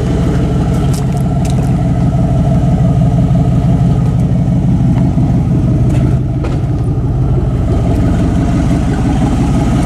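A vehicle engine running steadily under way, with a few light clicks about a second in.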